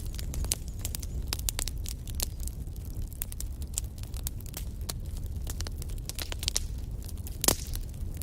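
Wood fire burning in a fireplace: logs crackling with many small irregular pops over a low steady rumble of flame, with one louder pop about seven and a half seconds in.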